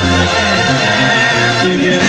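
Live banda sinaloense music: a full brass band with percussion playing steadily, with a singer's held notes over it.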